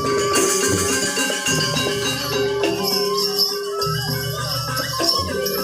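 Balinese gamelan music: ringing metal keyed instruments holding and changing notes over a repeating low pulse, with a dense rattling, jingling layer on top.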